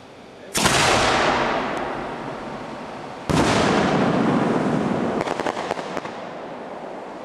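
Two homemade aerial firework shells bursting about three seconds apart. Each is a sudden loud bang that dies away slowly in a long echo, with a short patter of small pops near the end of the second.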